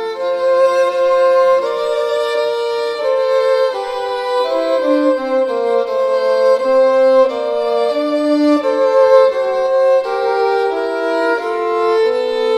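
Two violins playing a duet of a Christmas carol, the melody on top and a second part below it, in smooth bowed notes that change about every half second. No piano or other accompaniment.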